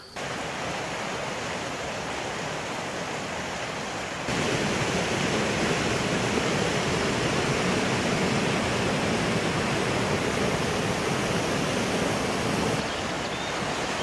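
Rushing water of the Ahinkoski waterfalls and rapids: a steady hiss of falling and churning water. It gets louder about four seconds in and drops slightly near the end.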